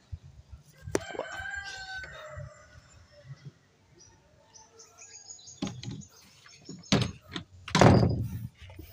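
A rooster crows once about a second in, its call dropping at the end, with small birds chirping later. Near the end come two loud, close breaths into the microphone from a man out of breath after hauling heavy wood.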